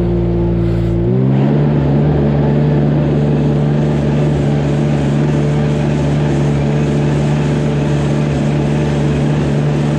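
Mini tractor engine running steadily while driving a bedding spreader in a cowshed alley. About a second in, the engine note steps up and a steady rush joins it as the spreader throws bedding into the cubicles.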